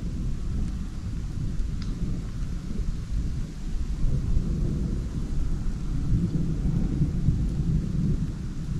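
Thunder of an approaching storm rumbling continuously, a deep rumble that swells louder about six seconds in.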